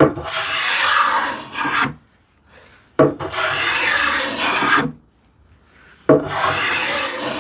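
Small hand plane taking three long strokes along the edge of a solid cherry board, cutting a light chamfer and lifting curled shavings. Each stroke is a dry hiss about two seconds long that starts sharply, with a short pause between strokes.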